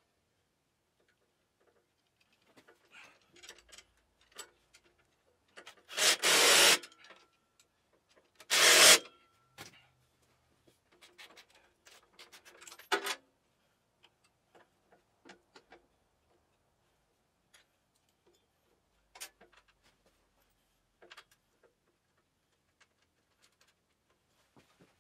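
Hand tools working on a garden tractor's rear PTO shaft and bearing flange: scattered light metal clicks and taps, with two loud harsh bursts under a second long about six and nine seconds in, and a short clatter near thirteen seconds.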